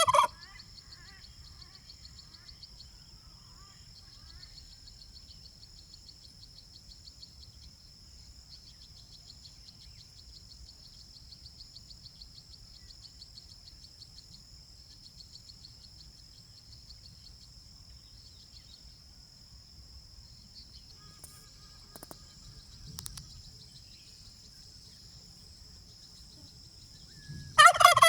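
Domestic turkey gobbling: the end of a loud rattling gobble at the very start, and another near the end. A faint steady high-pitched buzz runs underneath throughout.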